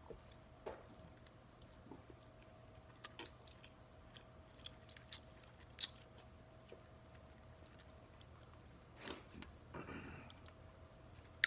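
Quiet close-up chewing of food, with scattered small wet mouth clicks and smacks and a couple of louder noisy moments about nine and ten seconds in. A faint steady hum runs underneath.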